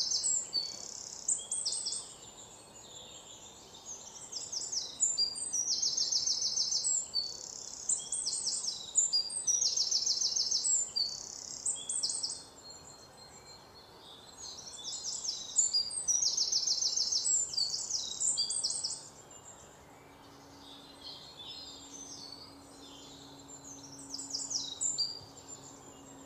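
Small songbirds chirping and trilling in quick, high bursts a second or two long, one after another, thinning out twice into quieter spells.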